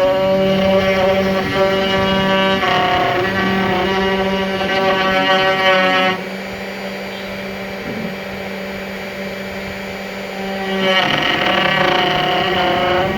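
CNC router running: a steady motor hum under layered whining tones that shift pitch as the machine moves. It is louder for the first six seconds or so, drops back, and grows loud again near the end.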